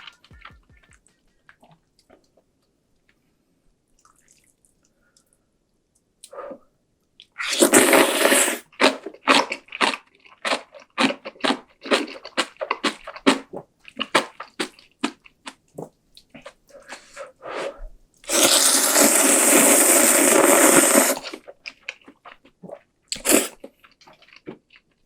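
Close-miked eating sounds: cup-ramen noodles slurped and kimchi chewed with a crunch. A short slurp about eight seconds in is followed by a run of quick crunching chews, then a long slurp of about three seconds, with a few more chews near the end.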